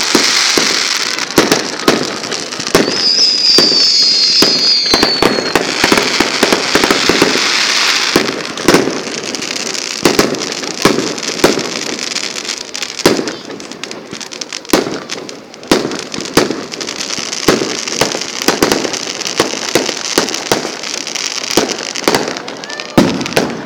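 Fireworks going off: a dense crackling barrage for the first eight seconds or so, with a brief high wavering whistle a few seconds in, then a run of separate bangs and crackles.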